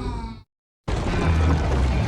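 Two monster roar sound effects played one after the other: a deep roar with a low rumble cuts off about half a second in, and after a short silence another deep roar begins about a second in.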